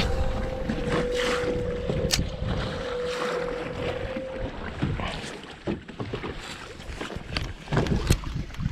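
Wind buffeting the microphone and choppy water moving around a bass boat, with a steady hum through the first half that then stops. Scattered sharp clicks and knocks from rod and tackle handling come through it, the loudest one near the end.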